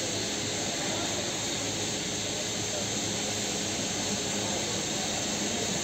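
Steady outdoor background roar of city and railway noise with a faint low hum, even throughout, with no distinct event standing out.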